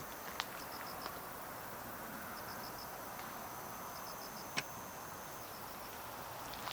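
An insect chirping in short trains of about four quick high-pitched pulses, repeated every second or two over a steady hiss, with two sharp clicks, the louder one a little past the middle.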